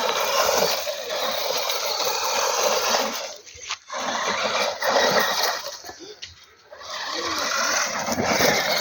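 Battery-electric 1:12 four-wheel-drive RC car running fast over rough ground, a steady hiss of tyres and drivetrain. It drops away sharply twice, about a third of the way in and again past the middle, then picks up again.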